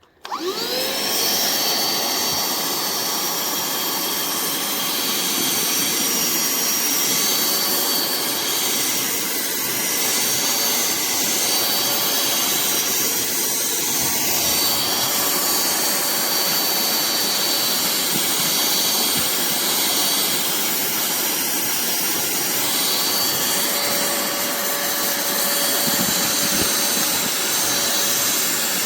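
Cordless handheld vacuum cleaner switched on: its motor spins up with a quick rising whine, then runs steadily with a high whine over a broad hiss.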